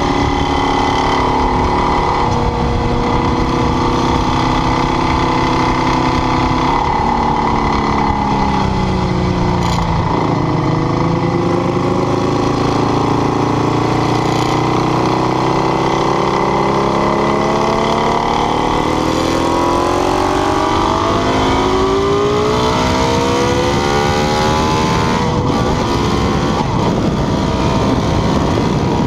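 Ducati 848's V-twin engine running hard at speed. Its pitch holds and steps early on, drops as the bike slows about a third of the way in, then rises steadily as it accelerates again.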